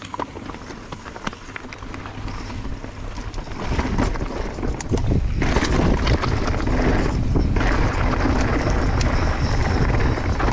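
Mountain bike rolling down a rocky singletrack trail: tyres rumbling over rock and the bike rattling, with many small clicks, getting much louder about four seconds in as it picks up speed.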